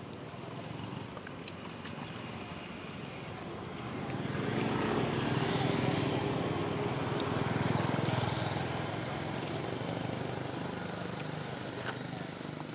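A motor vehicle's engine passing by, swelling about four seconds in and slowly fading again.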